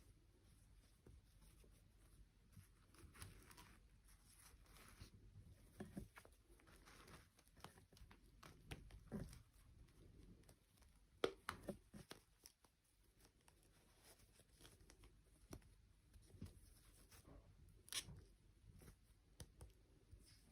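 Faint rustling with scattered light taps and clicks, the sharpest tap about halfway through and another near the end.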